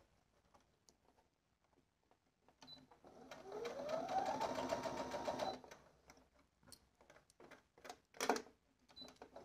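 Electric sewing machine stitching a seam in one short run: the motor whine rises as it speeds up, holds steady for about two seconds, then stops. A few light clicks and a knock follow as the fabric is handled.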